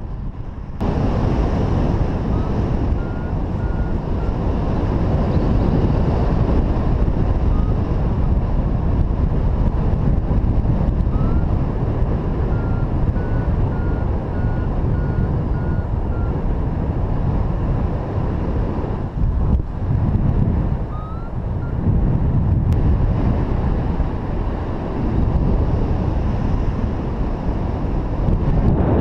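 Wind rushing over the microphone of a camera on a flying paraglider: a loud, steady, low rushing noise that briefly drops away twice, with faint short beeps in the background.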